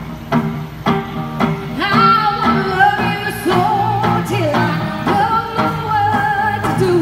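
Live band playing a rock song, with drum kit hits keeping a steady beat under electric guitars and bass. A woman's lead vocal comes in about two seconds in.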